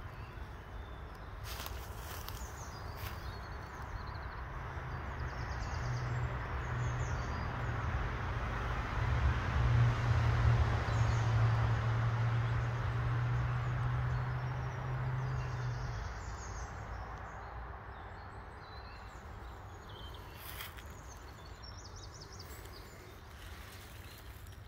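A distant engine drone with a steady low hum swells over several seconds, is loudest about ten seconds in, then fades away as it passes. Birds chirp faintly throughout, with a few short rustles or steps.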